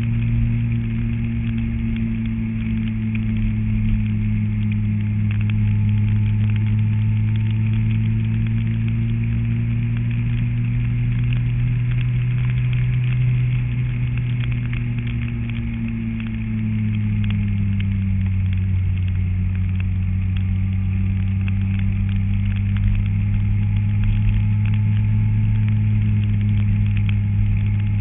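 An engine running at a steady speed, its pitch easing down a little about two-thirds of the way through and then holding steady.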